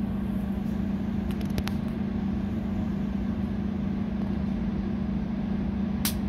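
ElectroAir electrostatic air cleaner arcing inside its collector cell: a few faint sharp snaps about a second and a half in and one loud snap near the end, over a steady low hum.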